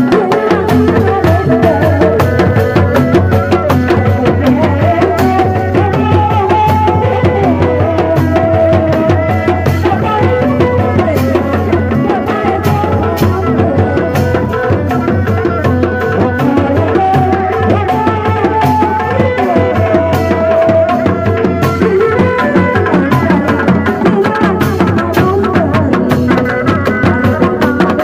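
Sundanese dog-dog ensemble: several hand-beaten barrel drums playing a fast, steady interlocking rhythm, with a wavering melody above them.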